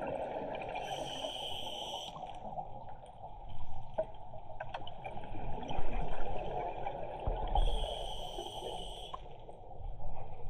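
Scuba diver breathing underwater through a regulator: two inhalations with a high hiss, about six seconds apart, and exhaled bubbles gurgling and rumbling between them.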